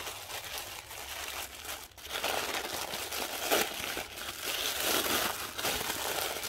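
Thin translucent wrapping crinkling and rustling as hands unfold it, irregular and growing louder about two seconds in.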